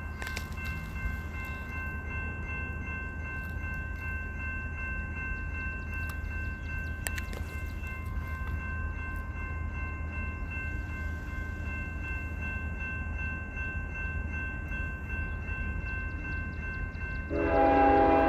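Steady low rumble with a few thin, steady high tones, then about a second before the end a horn sounds loudly, several notes at once, most likely the horn of an approaching train.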